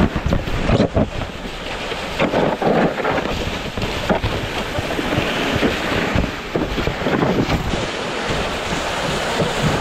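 A sled sliding down a packed-snow street, its base scraping and bumping over the snow. Wind rushes over the microphone riding on the sled.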